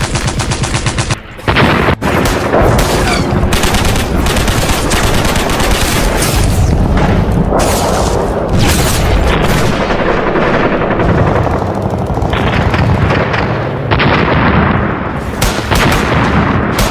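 Dubbed battle sound effects: rapid machine-gun fire and rifle shots in a dense, continuous exchange, with heavier gun blasts mixed in.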